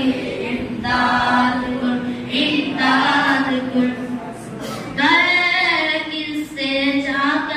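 A group of boys singing a devotional manqabat together in sung phrases of a few seconds each, over a steady held low note.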